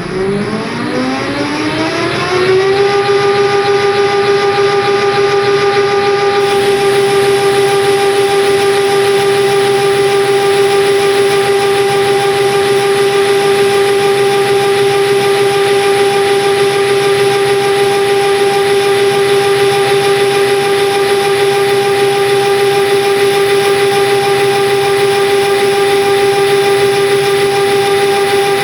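Lathe spindle motor spinning up with a rising whine, then running at a steady high pitch.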